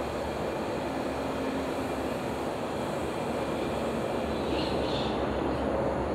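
Steady rumble of outdoor background noise, like distant traffic, with no sharp sounds.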